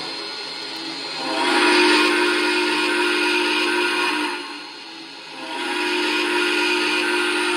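Steam locomotive whistle from an MTH Proto-Sound 2 model of locomotive 4449, played through the model's speaker: one long blast about a second in, a brief break, then a second long blast that carries on, over a steady hiss.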